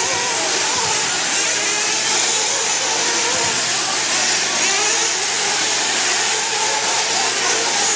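Several 1/8-scale nitro buggy engines running at once, a dense buzzing whine with many pitches wavering up and down as the engines rev.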